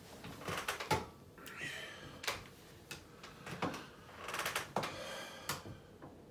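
A person moving back from the camera and settling into a chair: a run of sharp clicks, short creaks and clothing rustle, loudest about a second in and again near five seconds.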